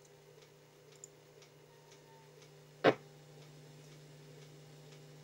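Lead-in of a digitized 8mm film soundtrack playing back: faint regular ticking, a few clicks a second, over a low hum, with one sharp pop about three seconds in.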